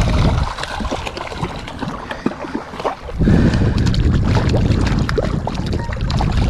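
Wind buffeting the microphone, rumbling low and growing stronger about three seconds in, with quick ticks and light splashes of choppy water against a kayak hull.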